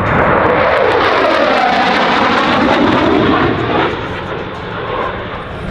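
Military airplane flying past: a loud rushing engine noise that sweeps in pitch as it goes by and eases off after about four seconds.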